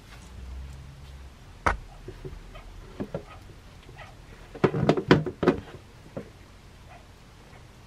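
Mating beetles clicking and knocking as their legs and hard shells scrabble against the bark log: one sharp knock, a few light clicks, then a cluster of louder knocks about five seconds in.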